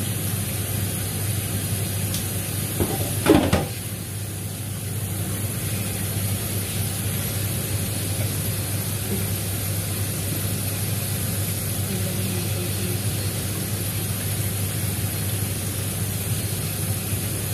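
Kitchen tap running steadily onto watercress in a stainless-steel colander and sink, with one brief louder clatter about three seconds in.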